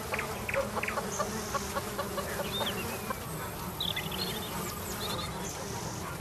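Farmyard ambience of hens clucking, with scattered short calls and small songbirds chirping and trilling higher up over a low, steady background drone.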